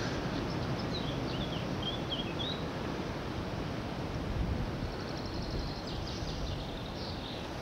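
Steady rush of wind, with a small bird chirping a string of short notes in the first few seconds and a quick trill near the end.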